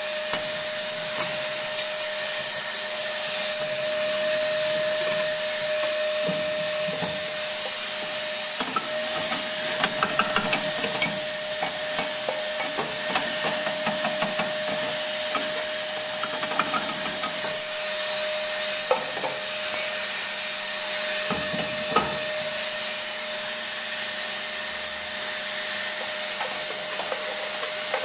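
Ribimex Cenerall 1000 W ash vacuum running steadily, a deafening motor noise with a high whine, while its metal nozzle sucks ash out of a pellet stove's burn pot. Scattered clicks and knocks come as the nozzle works against the metal.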